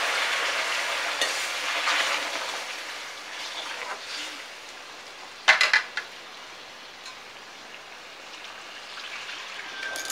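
Egg and potato curry in a karahi sizzling and bubbling just after hot water has been poured into the hot oil and masala, stirred with a metal ladle. The sizzle dies down over the first few seconds to a quieter steady simmer. About five and a half seconds in, the metal ladle clatters sharply onto a steel plate.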